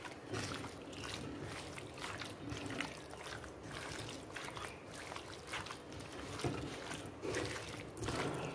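A hand squishing and kneading raw chicken pieces in a wet spice masala in a pot, a soft wet squelch with each squeeze, repeating irregularly.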